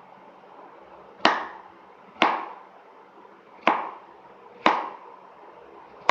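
Knife chopping down onto a cutting board, four sharp knocks about a second apart, each with a short ring.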